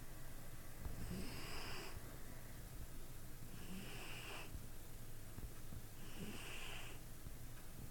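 A cat snoring in its sleep: three slow breaths about two and a half seconds apart, each with a high whistling note.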